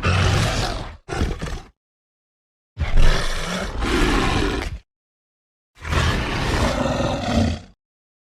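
Jagupard creature roar sound effects: a roar ends about a second in, then comes a short burst, then two harsh roars of about two seconds each, with dead silence between them.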